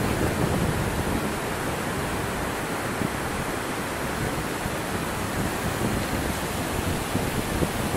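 Wind on the microphone: a steady rushing noise with an uneven low buffeting.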